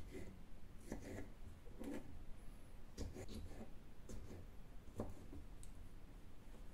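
Kitchen knife slicing pitted green olives on a wooden cutting board, the blade knocking on the board in short, irregular taps about once a second, with a quick run of cuts in the middle.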